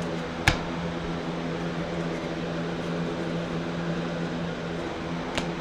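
Steady mechanical hum, like a fan or air conditioner running, with a single sharp click about half a second in and a fainter one near the end.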